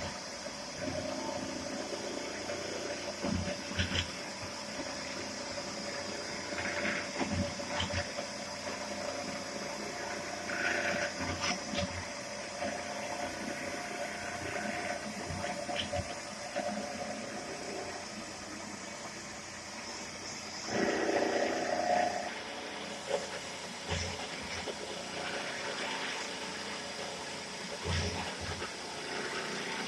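Plano milling machine running while it cuts a large gear, a steady machine hum with a held whine, broken by scattered short knocks and a louder, rougher stretch about two-thirds of the way through.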